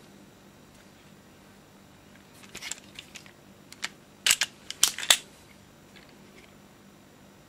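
Sharp metal clicks and clacks from a Marushin airsoft Mateba 2006M revolver as its cylinder is unlatched and swung open by hand. The clicks come in a cluster from about two and a half to five seconds in, the loudest near the end of that run.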